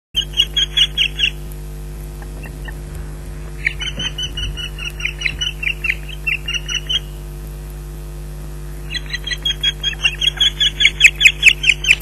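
Osprey alarm calls: three bouts of rapid, high, repeated whistled calls, about five a second, the last bout loudest, raised at an intruder near the nest. A steady low electrical hum runs underneath.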